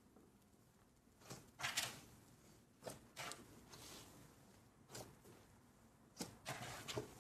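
Thick, fluffy-textured slime squeezed and pulled apart by hand, making short crackling, squishing bursts in about four clusters, the loudest about two seconds in.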